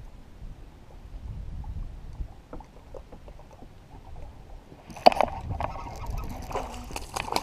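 Low wind rumble and water lapping around a kayak. About five seconds in there is a sharp knock, then louder rough water and handling noise.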